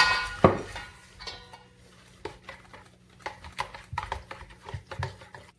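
Spoon stirring a thick yogurt marinade in a bowl: a ringing clink of the spoon against the bowl at the start and another knock about half a second in, then soft, irregular taps and scrapes that stop near the end.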